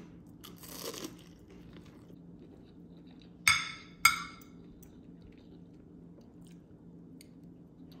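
Kitchen handling sounds: a brief rustle, then two sharp ringing clinks about half a second apart, like a utensil or dish striking hard tableware, over a low steady hum.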